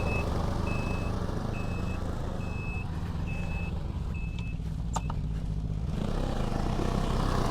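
Snowmobile reverse warning beeper sounding about once a second over the idling engine. The beeping stops about five seconds in, with a couple of sharp clicks as it ends.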